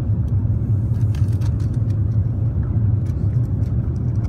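Airbus A350-900 cabin noise during the approach: a steady low rumble of its Rolls-Royce Trent XWB engines and airflow, heard from a window seat, with a few faint clicks.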